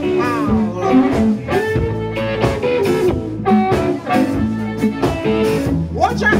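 Live blues band playing: an amplified harmonica plays bending, gliding notes over electric guitar and bass.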